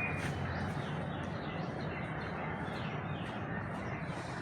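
Birds chirping now and then, faint, over a steady low background rumble.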